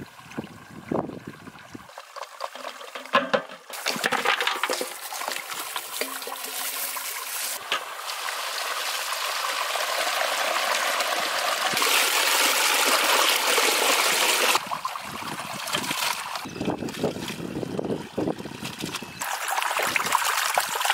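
Water gushing from a hose pipe into a large steel pot of raw mutton pieces and splashing over the meat as it is washed by hand. The rush of water builds up over the first half.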